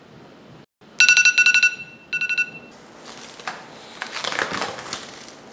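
Smartphone countdown timer alarm going off about a second in: two short bursts of rapid, high beeping, signalling that the dough's proofing time is up. After it, crinkling of plastic cling film as the covered bowl of dough is handled.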